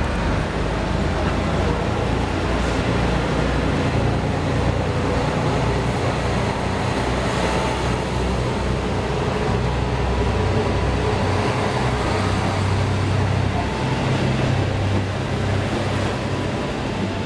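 KiHa 183-1000 diesel railcar train pulling out and rolling past along the platform, its diesel engines running with a steady low rumble under wheel and rail noise.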